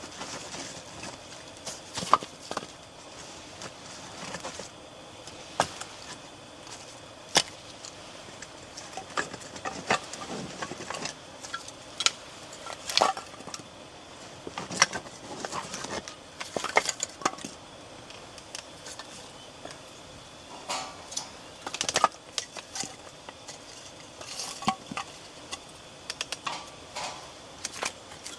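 Irregular clinks, taps and knocks of cookware and utensils being handled, with a few louder sharp clacks scattered through.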